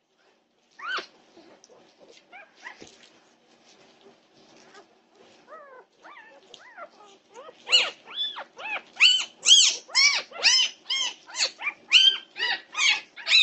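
Newborn Norwegian Buhund puppies crying: short, high, arched squeals, scattered and faint at first, then a fast run of loud cries about two a second through the second half.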